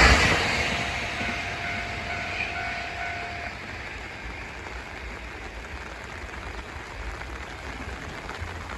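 Nankai Main Line train passing over a level crossing and pulling away. Its rumble fades over the first three seconds, leaving a low steady background.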